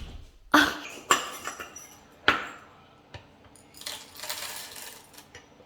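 Dishes clinking and being set down: three sharp knocks with short ringing tails, the loudest about half a second in, the others about one and two and a quarter seconds in, followed by a brief soft hiss around four seconds in.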